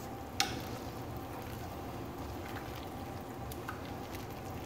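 Gumbo simmering in a stainless steel stockpot while it is stirred with a wooden spoon, with one light knock of the spoon against the pot about half a second in, over a steady bubbling hiss.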